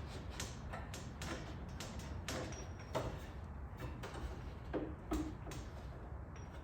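Scattered light clicks and knocks as the car's door glass is worked and tilted out of the door shell, over a steady low rumble.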